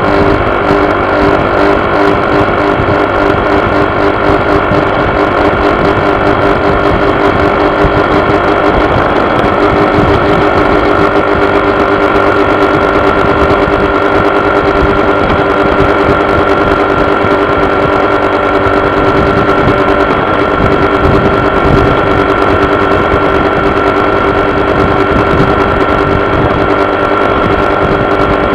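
Honda PCX scooter's single-cylinder engine running steadily with a buzzing vibration and a constant high tone over the engine note. The owner takes the buzz for a fault.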